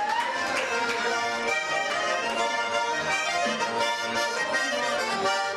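Small button accordion playing a folk tune, chords and melody notes held and changing without a pause.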